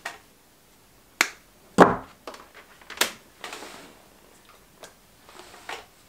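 Several sharp clicks and light knocks of small hand tools and parts being handled, the loudest with a dull thump about two seconds in.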